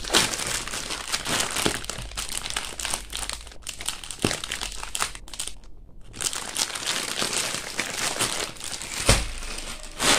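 Clear plastic clothing packet crinkling as it is handled and a string is tied around it, with a brief lull about six seconds in. A single sharp knock about nine seconds in is the loudest sound.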